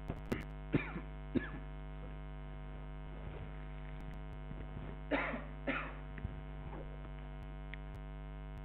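Steady electrical mains hum on the recording, with a few short, faint noises in the first second and a half and two slightly louder ones about five seconds in.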